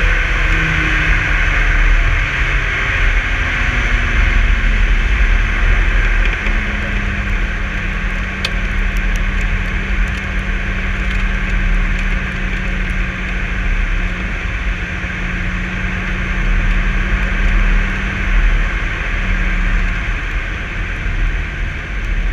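Wind and road noise rushing past a camera mounted low on the front splitter of a 2016 Dodge Viper ACR at speed. The V10 engine sounds underneath, falling in pitch over the first few seconds, then holding a steady drone.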